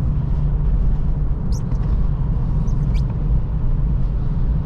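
Steady low road rumble from a 2023 Acura Integra driving over a rough, potholed road, with a few brief high-pitched squeaks about a second and a half in and again near three seconds in.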